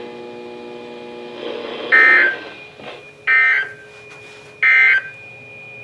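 Three short bursts of Emergency Alert System SAME header data tones from a NOAA Weather Radio broadcast, about a second and a half apart, marking the start of a new alert message. A faint steady electronic hum lies underneath.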